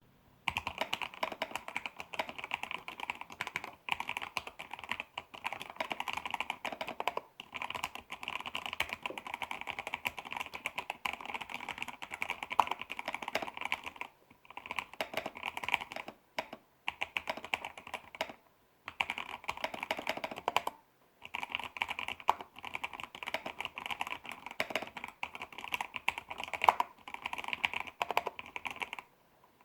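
Typing on a wooden-case mechanical keyboard with Outemu Red linear switches on 80 g springs, dampened with paper tape and PE foam, and thick-walled PBT keycaps: fast runs of keystroke clacks broken by brief pauses.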